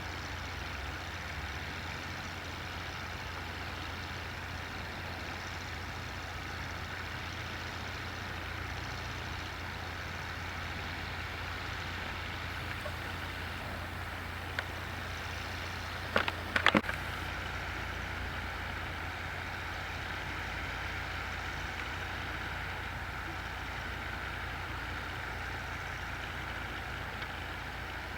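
MB-Trac tractor's diesel engine running steadily under load with potato harvesting machinery. A brief cluster of sharp knocks comes about two-thirds of the way through.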